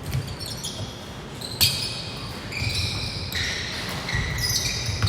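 Basketball game on an indoor court: the ball thumps on the floor and sneakers give short high squeaks. A sharp knock comes about one and a half seconds in.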